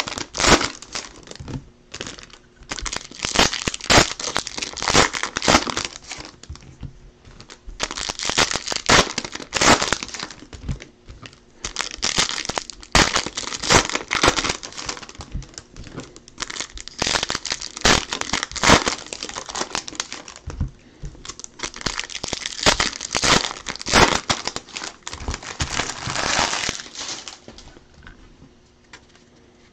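Foil baseball card pack wrappers being torn open and crumpled by hand: a dense, uneven run of crinkling and tearing that dies down near the end.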